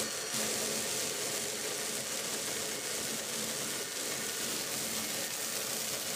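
Small machine tool running steadily while it cuts discs from a bar of German silver, an even hiss with a low hum under it.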